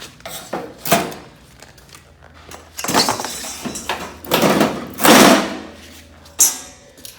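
Knockdown hollow metal door frame pieces being broken loose from their bundle and handled: several knocks and clanks of the sheet-steel parts, a longer scraping, rustling stretch about four to five seconds in, and one more sharp knock near the end.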